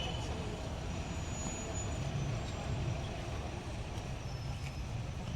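Steady low rumble of outdoor urban background noise, with no single clear event.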